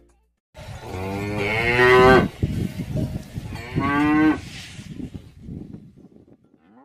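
Cow mooing twice: one long moo, then a shorter one.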